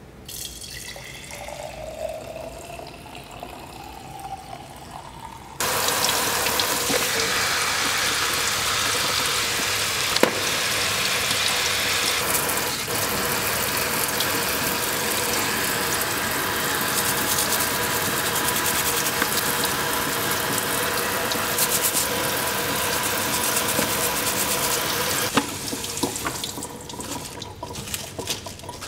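Liquid poured into a glass jar, with a tone rising in pitch as the jar fills. About six seconds in, a kitchen tap comes on at full flow and runs steadily as spinach and other greens are rinsed in a colander, dying away near the end.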